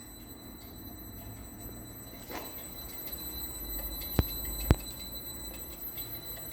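Bonfiglioli Agile 11 kW frequency inverter powered up on test, giving off a steady high-pitched electronic whine with evenly spaced overtones. Two sharp clicks come about four seconds in, half a second apart, over a faint low rumble.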